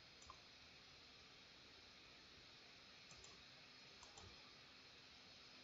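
Near silence with a few faint computer mouse clicks: one a moment in, then pairs around three and four seconds in.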